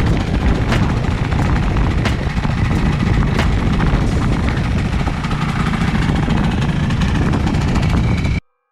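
Vespa Sprint V's 215cc two-stroke engine running steadily with a heavy low throb, then stopping abruptly near the end.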